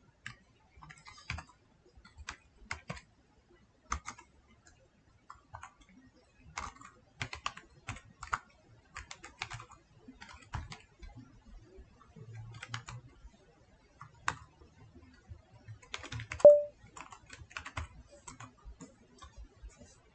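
Typing on a computer keyboard: irregular runs of keystrokes with short pauses between them. One louder knock with a brief ring stands out about three-quarters of the way through.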